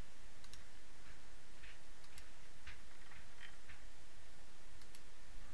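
Computer mouse clicking: a few quick pairs of faint clicks over a steady background hiss, as a command is picked and an edge selected in CAD software.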